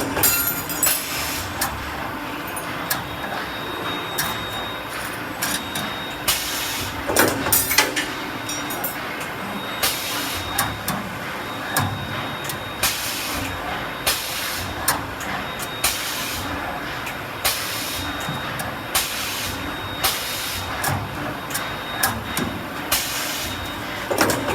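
3-axis CNC wire-bending machine at work: a steady mechanical running noise broken every couple of seconds by short hissing bursts, with scattered sharp clicks.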